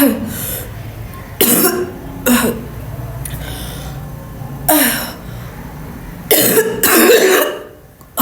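A woman coughing deliberately, about six loud coughs at uneven intervals, some singly and some in quick pairs, with throat-clearing.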